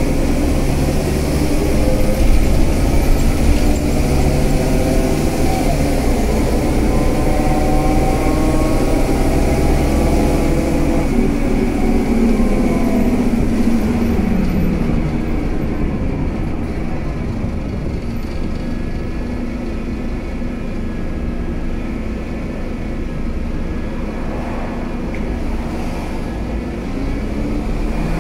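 Scania K320UA bus's diesel engine pulling under load, its pitch climbing steadily for about ten seconds, then falling away around twelve seconds in. It then runs lower and a little quieter, picking up slightly again near the end.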